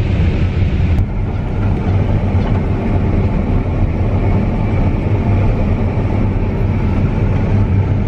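CLAAS combine harvester running while harvesting corn, heard from inside the cab: a steady, loud, low drone of the engine and harvesting machinery.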